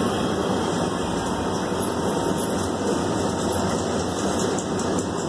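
Metro Red Line subway car (Breda A650) heard from inside, with steady wheel-on-rail and running-gear noise as it pulls into a station.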